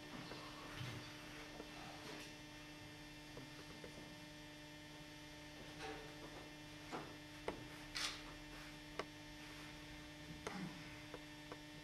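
Steady electrical mains hum, low and faint, with a few soft knocks and rustles scattered through the second half.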